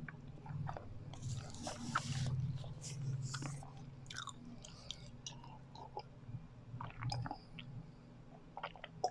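Close-miked chewing of sticky sweet rice cake (biko), with wet mouth sounds and smacks. It is loudest in a cluster about a second to three and a half seconds in, then softens to scattered clicks.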